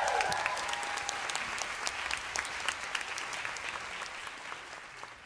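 Audience applauding in a hall, the clapping dying away steadily.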